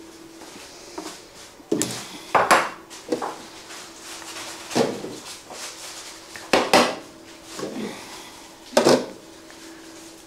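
Kitchen clatter: a ceramic bowl being handled and put into a microwave oven, with about seven sharp knocks as it is set down and the microwave door is worked.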